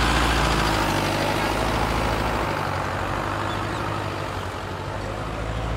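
Mahindra Arjun Novo 605 DI 4x4 tractor's diesel engine running steadily under load as it pulls a tine cultivator through the soil, fading slightly over the few seconds.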